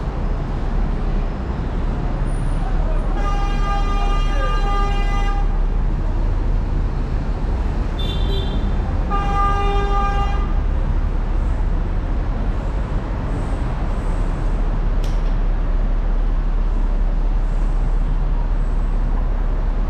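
Busy street traffic with a vehicle horn honking twice: a held blast of about two seconds, then a shorter one about four seconds later. A brief higher toot comes just before the second blast.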